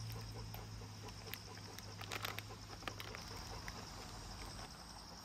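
Steady high-pitched insect buzzing, with a low hum underneath that fades out near the end. A few short sharp sounds come in the middle, twice in quick succession just after two seconds in.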